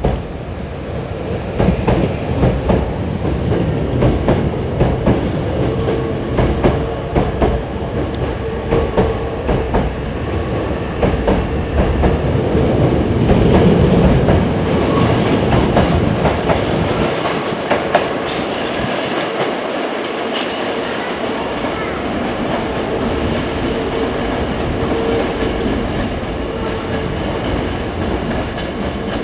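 Hankyu electric train moving through the station, its wheels clicking over rail joints and points in a rapid clickety-clack for the first half, then running on as a steadier rumble.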